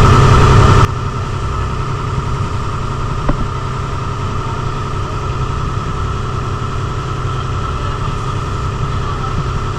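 An engine running with a steady, even drone, after a louder stretch that cuts off abruptly just under a second in.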